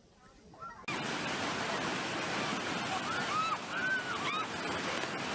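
Whitewater rushing loudly around an inflatable raft, starting suddenly about a second in. A few short high-pitched yells from the rafters come around the middle.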